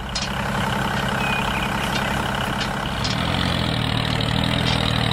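Engine idling steadily with a low, even running note; the note shifts slightly about three seconds in.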